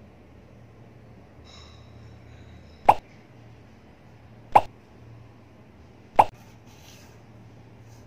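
Three short pop sound effects, evenly spaced about one and a half seconds apart, each sharp and brief.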